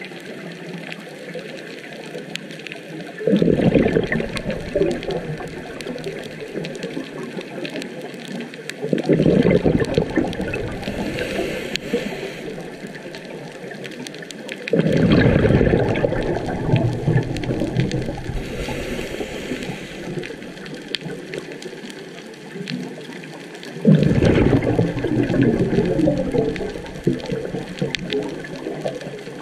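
Scuba diver's exhaled breath bubbling out of a regulator underwater, four times, each burst of bubbles lasting a few seconds, with quieter underwater noise between breaths.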